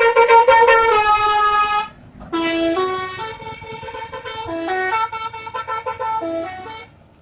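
Bus 'telolet' (basuri) musical air horn playing a stepping multi-note tune, several tones sounding together. It plays in two phrases with a short break about two seconds in, and stops just before the end.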